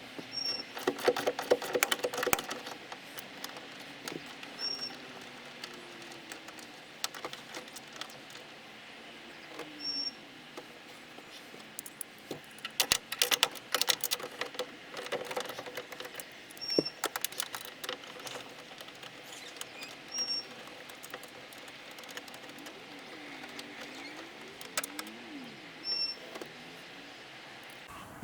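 Hand work on a car door's trim and fittings: clusters of irregular clicks, taps and light rattles of tools and plastic and metal parts, with a faint short chirp every few seconds.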